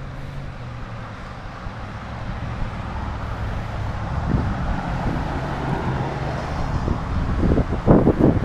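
Wind rumbling on the microphone of a camera riding along on a moving bicycle, with the hiss of road traffic alongside growing louder through the second half. A few loud buffets hit the microphone near the end.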